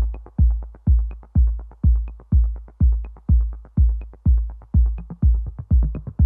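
Electronic dance music: a steady, heavy kick drum at about two beats a second, with a light high tick about once a second.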